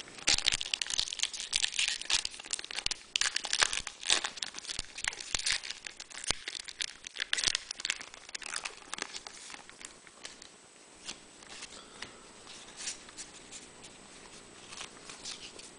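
Foil Pokémon booster pack wrapper being pulled open and crinkled in the hands, a dense run of crackling tears and rustles. After about ten seconds it thins to scattered light clicks and rustles as the cards are handled.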